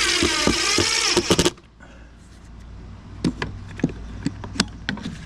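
Power drill running at speed for about a second and a half, drilling countersunk screw holes, then stopping sharply; a few light knocks and clicks of handling follow.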